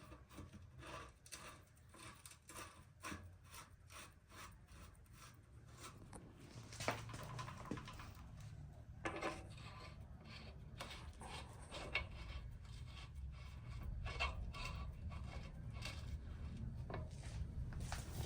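Hands working on bicycle parts: irregular small clicks, taps and rubbing, with a low rumble growing louder in the second half.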